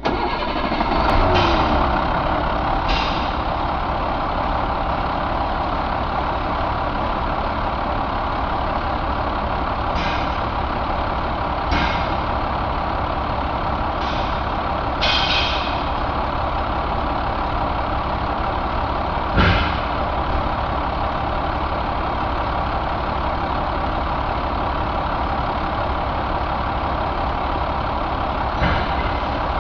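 A 2000 International DT466E inline-six turbodiesel starts up, runs a little higher for a moment, then settles into a steady idle. A few short sharp clanks or hisses come through it at uneven intervals, the loudest about two-thirds of the way through.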